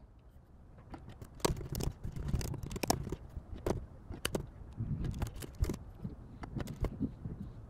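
Typing on a computer keyboard: soft, irregular keystroke clicks, several a second.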